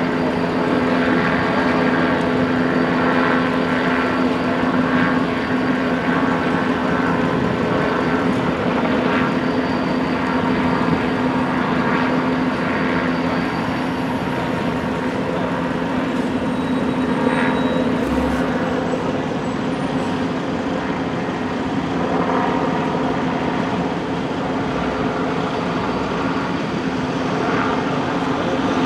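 Steady drone of idling vehicle engines, a constant hum that holds the same pitch throughout.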